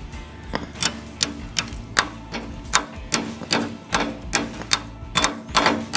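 Metal tools clicking and tapping against a cotter pin in a lawn tractor's front wheel axle, in uneven strokes about two or three a second, as the pin is worked out.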